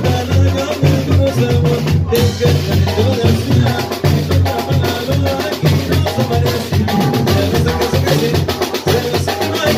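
Live Mexican banda music. Held horn notes play over a stepping bass line, and a large drum and cymbal keep a fast, even beat.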